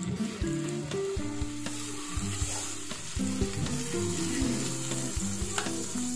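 Meat and butter sizzling on the hot grill plate of an electric grill-and-hotpot, a steady frying hiss that grows stronger about a second and a half in.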